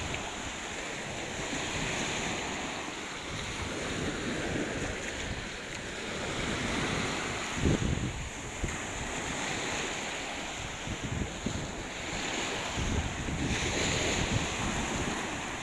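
Sea waves washing on the shore, with wind buffeting the microphone in low rumbling gusts, strongest about eight seconds in and near the end.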